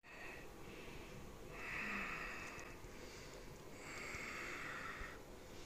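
Faint, slow breathing close to the microphone: about three soft breaths, one every couple of seconds, with a couple of tiny handling clicks.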